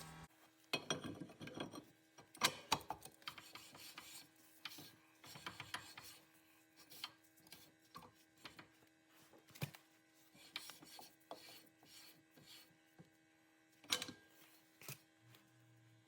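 Faint, scattered clicks and scrapes of metal parts and tools being handled while a car's rear wheel hub is reassembled, with a louder knock about two and a half seconds in and another near the end. A faint steady hum lies underneath.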